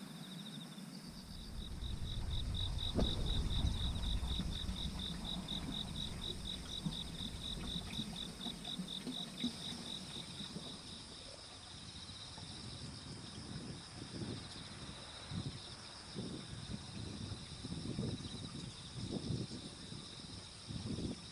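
Insects chirping, cricket-like: a rapid pulsed chirp of about four or five pulses a second that stops about halfway through, over a steady high trill that keeps going. A low rumble fills the first half, and soft short rustles come and go in the second half.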